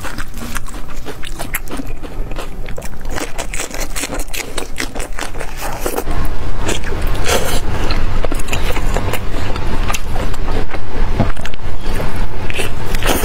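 Close-miked eating sounds: wet crackling and clicking as plastic-gloved hands work sauce-coated lettuce leaves, then, louder from about six seconds in, biting and chewing into braised meat.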